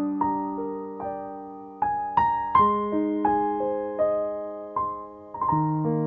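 Slow, gentle piano music: single notes and chords struck every half second or so, each left ringing and fading.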